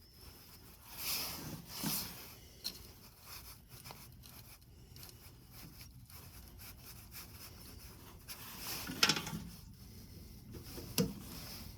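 Rubbing and scraping handling sounds with a few short knocks and clicks, the sharpest about three quarters of the way through: hands working on parts and wiring inside a furnace cabinet.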